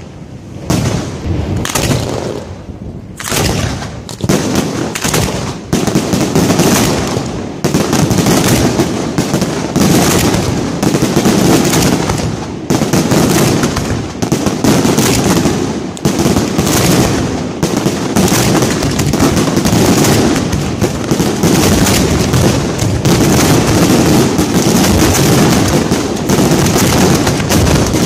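Fireworks fired at close range from racks around the camera. Separate sharp bangs at first, building over the first several seconds into a dense, continuous barrage of rapid bangs.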